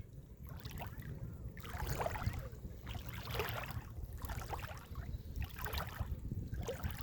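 Shallow seawater sloshing and splashing in repeated swishes about once a second, over a steady low rumble.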